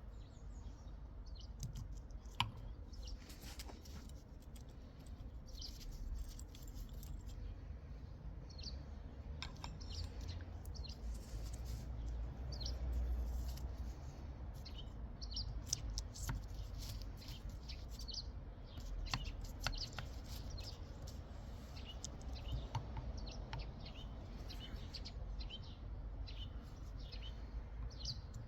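Birds chirping on and off, short high calls scattered throughout, over a low steady rumble, with a few light clicks.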